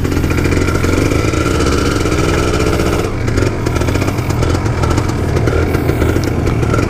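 Kawasaki Ninja 150 RR's single-cylinder two-stroke engine running steadily under way through its stock exhaust, with the engine not yet fully warmed up.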